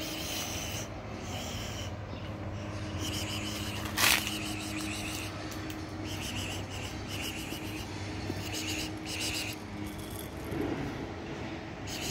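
Outdoor street ambience: a steady low hum with repeated short bursts of high chirping, and one sharp click about four seconds in.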